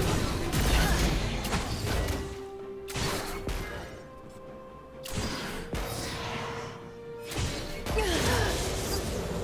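Music with long held notes over a dense, noisy background.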